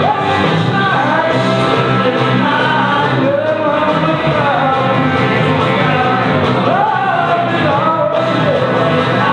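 Music: a rock and roll song with a lead voice singing over a band.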